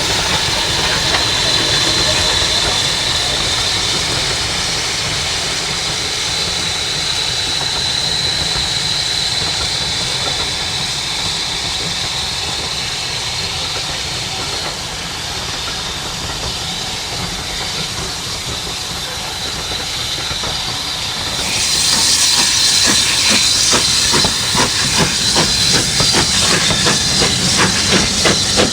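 BR Standard 4 tank steam locomotive blowing off steam with a loud, steady hiss. About 21 seconds in it grows louder and harsher, with rapid rattling beats running through the hiss.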